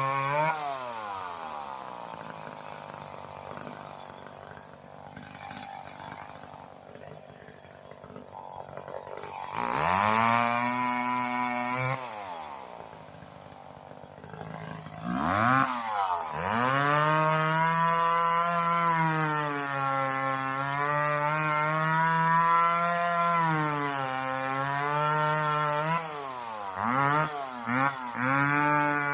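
Two-stroke chainsaw: the revs fall back to idle, it revs up briefly, then it runs at full throttle for about ten seconds with its pitch sagging and recovering as it bogs in a cut. It ends with several quick throttle blips.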